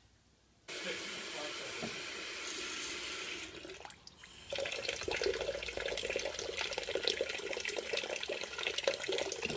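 Kitchen tap running into a sink of water, then a hand swishing and lifting damsons in the water under the stream, with many small splashes and plops.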